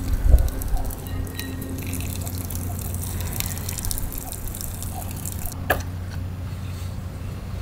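Water poured from a metal kettle into an instant noodle cup, splashing and trickling onto the noodles for about five seconds after a soft thump at the start. A short sharp click follows as the cup's lid is closed.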